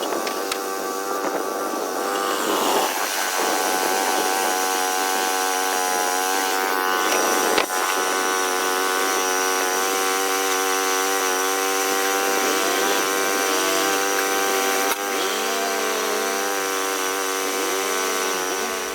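A small sawmill running steadily, its engine giving a steady pitched drone under the noise of the saw.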